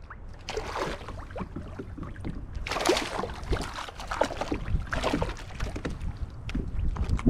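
Water sloshing and slapping against a kayak hull in surges every couple of seconds, with wind rumbling on the microphone.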